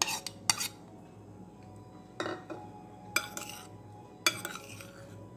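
Metal spoon clinking and scraping against bowls as chopped boiled egg is scraped into and mixed through moistened corn couscous in a glass bowl: two sharp taps at the start, then three clusters of clinks and scrapes about two, three and four seconds in.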